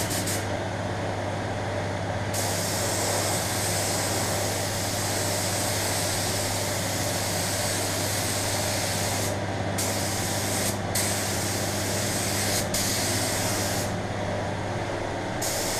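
Air-fed paint spray gun hissing steadily as it sprays clear lacquer over a steady low hum. The hiss breaks off briefly several times as the trigger is let go, the longest break near the end.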